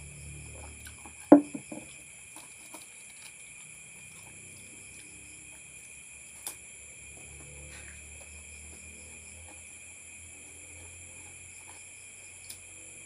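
Insects trilling steadily at several high pitches. About a second in comes one sharp knock, a drinking glass set down on a table, followed by a few small clicks.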